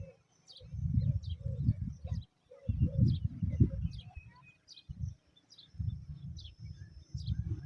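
Small birds chirping: short, high, falling chirps repeated about twice a second. Over them come loud, low rumbling bumps that start and stop every second or so.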